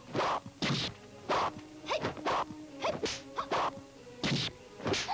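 Kung fu film fight sound effects: a quick run of short swishes and whacks for blows and moves, about two a second, over soft background music.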